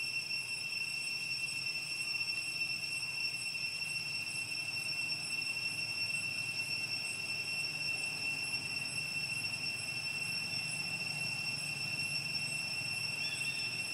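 Insects droning: one steady, high-pitched tone held without a break.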